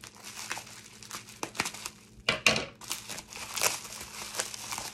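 Plastic bubble wrap crinkling and rustling as it is pulled open by hand, in a run of short crackles that is loudest a little before halfway.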